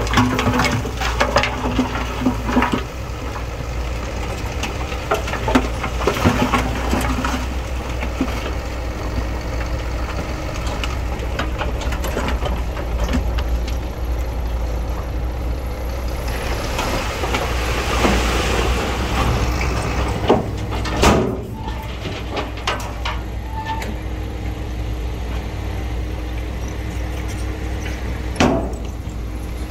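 Heavy diesel earthmoving machinery running steadily, with scattered clanks and knocks and a longer hiss a little past halfway.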